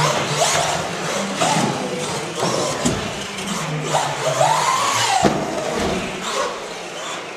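Electric 1/10-scale RC off-road buggy, a Durango DEX410, running on a carpet track: its motor whine rises and falls with the throttle over tyre and drivetrain noise, with one rising whine that cuts off sharply about five seconds in.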